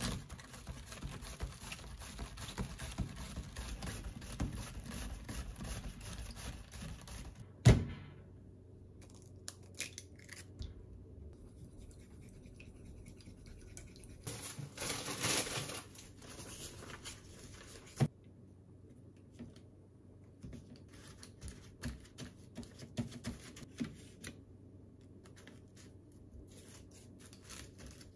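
A cabbage half scraped back and forth on a cabbage slicer over a plastic container: fast steady rasping for about eight seconds, ending in a sharp knock. After that, quieter kitchen handling: chopsticks working beaten egg on a ceramic plate, another knock, and light taps and rustles of tongs and paper towel.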